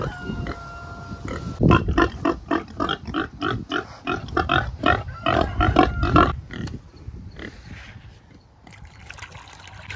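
Pigs grunting in a quick run of short grunts, about three a second, for several seconds, then falling quieter.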